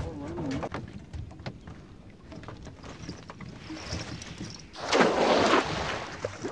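Water sloshing and small knocks around a small boat, with a louder splashing rush about five seconds in that lasts under a second.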